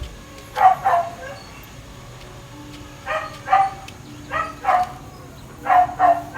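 Dog barking: about nine short barks, mostly in quick pairs, with pauses of a second or two between the groups.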